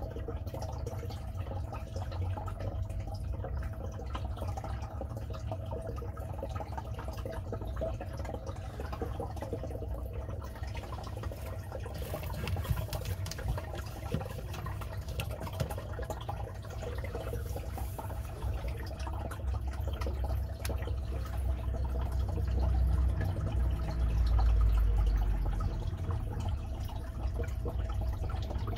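Water trickling and splashing in a turtle tank, over a steady faint hum and a low rumble that grows louder about three-quarters of the way through.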